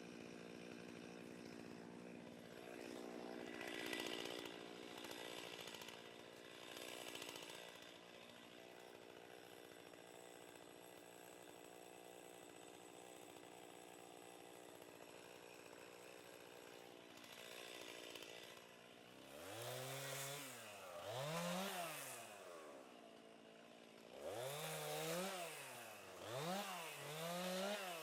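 Two-stroke chainsaw running at a steady idle, then revved up and down about five times over the last third, its pitch climbing and falling with each rev.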